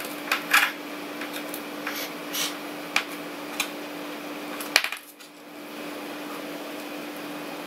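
Small screwdriver undoing the screws of a metal NVMe SSD enclosure: scattered light metallic clicks and scrapes, the loudest one just under five seconds in.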